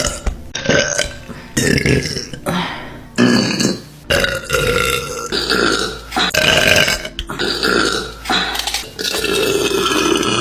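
A quick string of loud burps from a woman eating, about a dozen, each half a second to a second long, cut back to back with hardly a gap between them.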